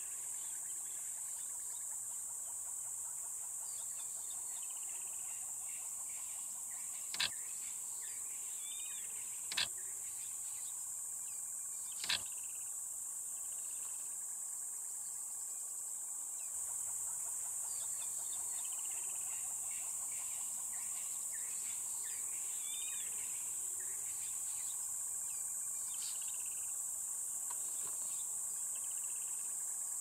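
Steady high-pitched insect chorus, with faint squeaky, wheezy calls from a flock of wattled starlings. Three sharp clicks come in the first half.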